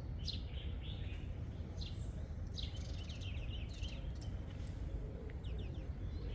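Small birds chirping in short, high calls scattered throughout, over a steady low rumble.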